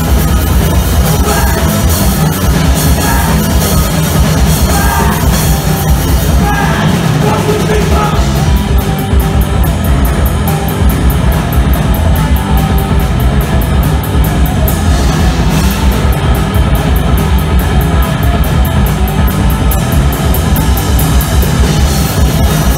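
A three-piece punk rock band playing live and loud: electric guitar, bass guitar and drum kit. A fast, steady cymbal beat comes in about nine seconds in.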